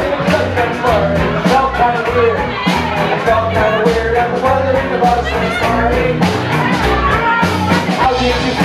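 Live rock band playing: drums keeping a steady beat under electric bass and an amplified cello, with a voice singing over them.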